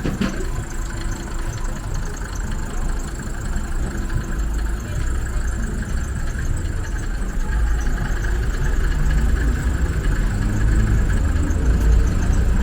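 Street traffic: a steady rumble of car engines running, growing louder over the last few seconds.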